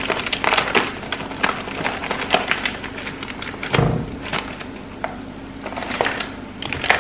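Paper bag of corn masa flour crinkling and rustling as the flour is poured into a glass bowl, with a dull thump just before four seconds in.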